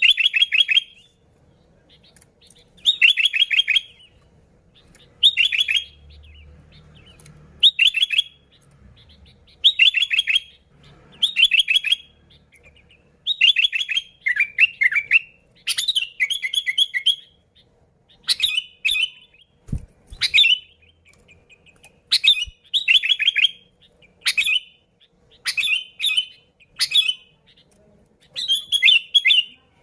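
Sooty-headed bulbul (kutilang) singing: short, bubbly whistled phrases repeated every second or two.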